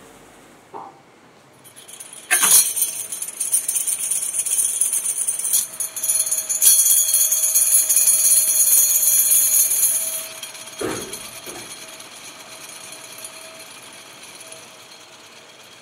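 Vibratory finishing bowl running, steel sprockets and granular media rattling and hissing together in a steady jingling churn as the parts are deburred. It starts up sharply about two seconds in, stays loud until about ten seconds, then drops to a softer rattle after a short thump.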